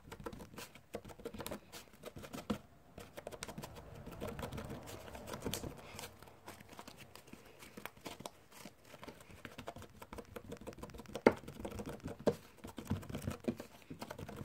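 Slime being handled and squished, a dense run of irregular sticky clicks and crackles, with a few sharper pops near the end.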